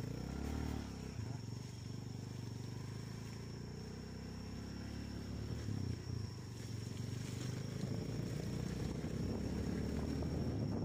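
Vehicle engine running while driving, its pitch rising and falling a few times, with a steady high-pitched whine over it.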